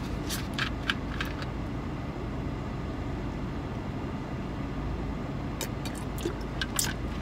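A plastic bottle of red soda is opened with a few short clicks of the cap in the first second, then drunk from, with more clicks of the bottle near the end. A steady low hum of the car cabin runs underneath.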